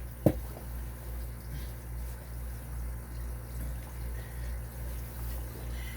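One sharp metallic click about a third of a second in, from small tools and lock parts being handled during padlock core disassembly, over a steady low electrical hum.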